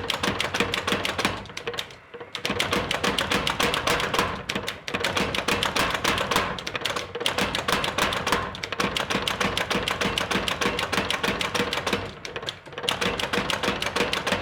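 Rapid hammer blows on hot steel, about nine a second, in runs broken by short pauses.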